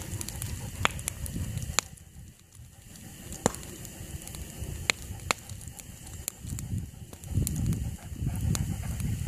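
Wood campfire crackling, with several sharp pops a few seconds apart over a low rumble that grows louder near the end.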